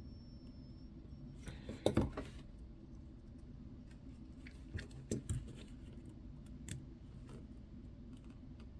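Small clicks and taps of watch-repair hand tools working on a watch, loudest in a short cluster about two seconds in, with a few more around five seconds and one near seven.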